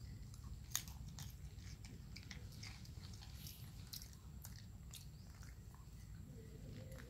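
Macaque biting into and chewing small green fruits: faint, scattered crisp cracks as the husks split, with one sharper crack about a second in.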